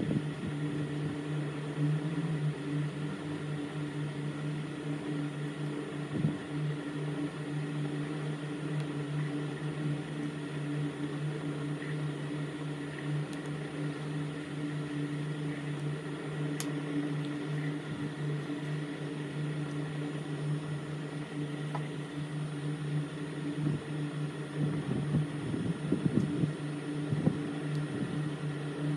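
A small electric machine humming steadily, with a few light taps and knocks of handling near the end.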